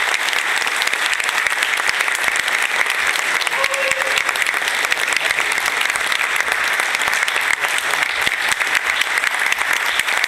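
Spectators clapping steadily in a sports hall, applause for the second, match-winning point of a kendo final.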